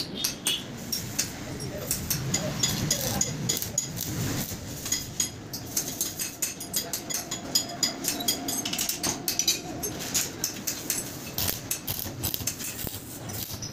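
Electric arc welding on steel channel: an irregular crackle and sputter from the arc as the corners of the frame are tack-welded.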